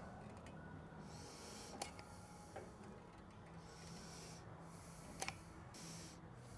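Faint caulking-gun work as beads of caulk are laid on a metal splice plate: a sharp click about two seconds in and a double click about five seconds in, with soft breathing heard every second or two.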